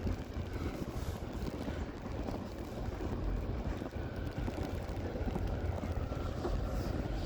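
Snowstorm wind buffeting the microphone: a steady, uneven low rumble.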